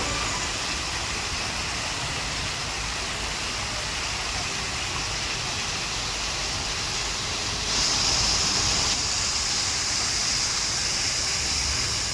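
Water falling from a three-tiered fountain and splashing into its basin: a steady rushing hiss, briefly louder about two-thirds of the way through.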